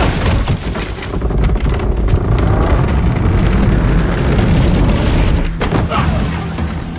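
Dense action-film sound effects: a deep, steady rumble with rushing wind noise and scattered crashes and impacts of a fight in a ship's wooden hold.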